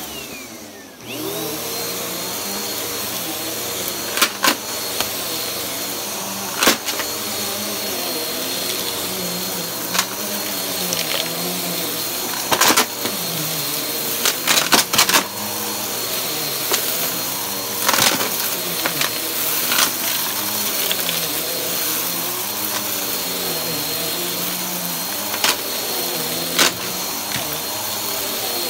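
Upright vacuum cleaner starting up about a second in, then running with a steady high whine that wavers as it is pushed back and forth over carpet. Now and then sharp clicks and rattles sound as coins and grit are sucked up.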